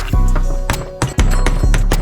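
Background music with a heavy, steady bass beat.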